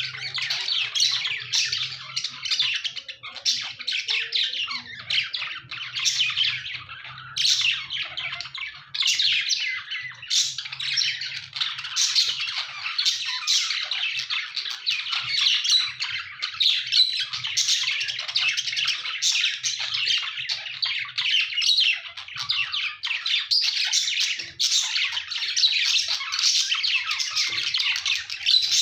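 A flock of budgerigars (budgies) chattering and squawking without pause, many birds calling over one another in quick, high-pitched chirps and warbles.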